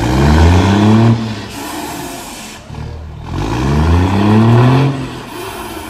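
Heavy truck's diesel engine revved twice through a long chrome straight exhaust pipe. Each rev climbs in pitch for about a second and a half, then drops back to idle.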